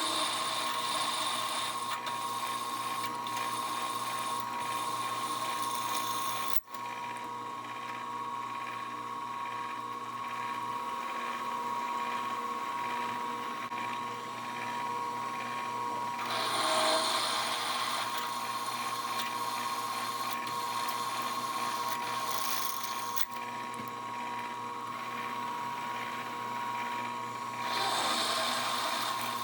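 CNC milling machine drilling holes in a metal plate: a steady high spindle whine, with stretches of louder cutting noise as the drill bites, at the start, about 16 seconds in and near the end.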